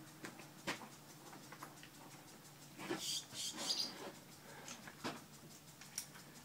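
Horse bridle being buckled: small metallic clicks and clinks of the buckles and bit, with a brief jingle of metal about three seconds in.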